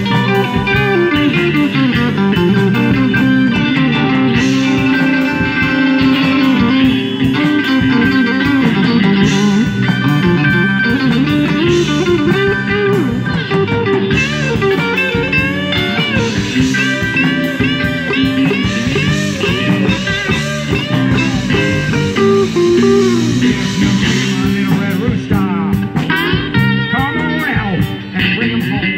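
Live blues band playing an instrumental stretch of a slow blues: electric guitar lead lines with notes bending up and down over bass guitar and a steady drum beat.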